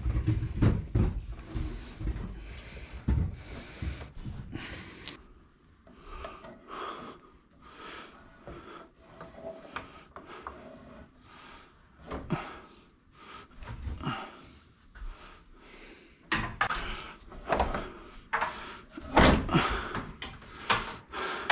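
Irregular knocks, clunks and rubbing from hands-on work, busiest at the start and over the last few seconds, with scattered quieter clicks in between.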